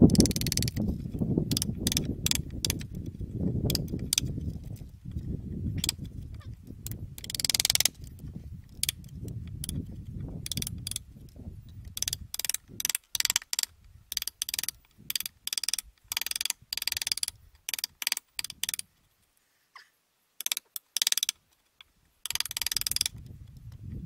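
Hammer striking a steel chisel, cutting a joint into a peeled spruce log: a run of sharp, uneven strikes, each with a short ring, which stop briefly a little past the middle.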